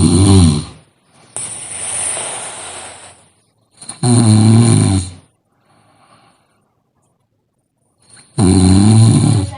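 A sleeping person snoring loudly in a slow rhythm. Three rattling snores come about four seconds apart: one ending just under a second in, one about four seconds in, and one near the end. A softer, airy breath sounds between the first two.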